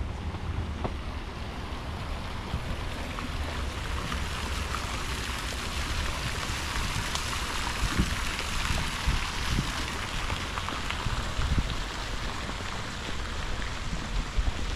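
Wind buffeting the microphone: an uneven low rumble with a few heavier gusts, over a steady rain-like hiss.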